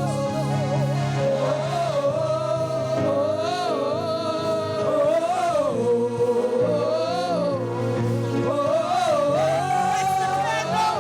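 Live gospel praise music: the band plays on between sung lines, a wavering lead melody line over a steady bass line.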